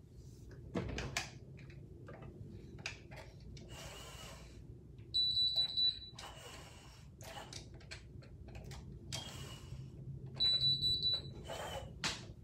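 Conair automatic hair curler beeping: a quick run of high beeps about five seconds in and again about ten seconds in, the timer signal that the curl is done and can be released. Hair and the curler rustle while a section of hair is handled and fed in.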